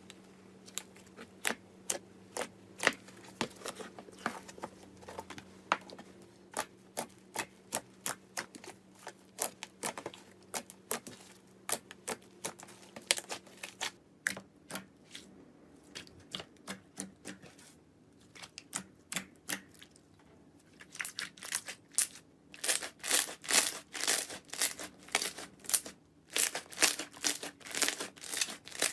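Slime being pressed and squeezed by hand, giving a long run of sharp irregular clicks and pops. About twenty seconds in, the pops come thicker and louder.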